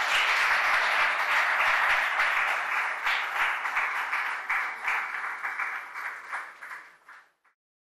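Audience applauding: dense clapping that starts to thin out about four seconds in and dies away about seven seconds in.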